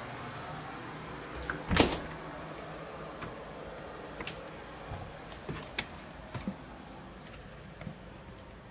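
A sharp knock just under two seconds in, then scattered light clicks and taps as an interior door is pushed open.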